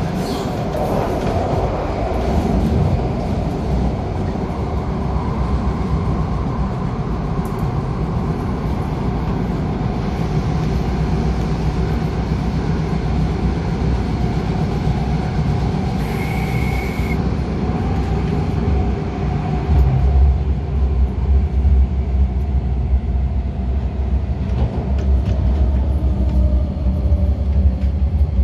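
MTR Tung Chung line A-Train (Adtranz-CAF electric multiple unit) running through a tunnel, heard from inside the carriage: a steady rumble of wheels on rail with a motor whine. The rumble grows heavier about two-thirds of the way through, and the whine falls in pitch near the end as the train slows into a station. A brief high tone sounds about halfway through.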